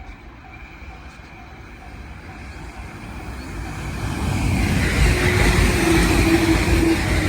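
Level crossing warning bell ringing in an even on-off rhythm, then a train approaching on the Joban Line and going past at high speed, its rumble and rush of wheels building from about three seconds in and staying loud to the end.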